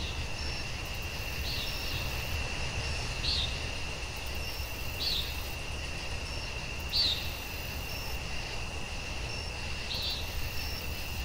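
Outdoor ambience: a steady high-pitched insect drone with short bird calls repeating about every two seconds, over a low rumble.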